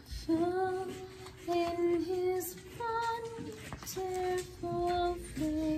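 A woman and a little girl singing a slow, simple tune together, one held note after another.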